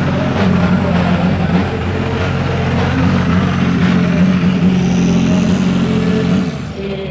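Ferrari 499P Modificata's twin-turbo V6 running steadily at low revs. It drops in level about six and a half seconds in.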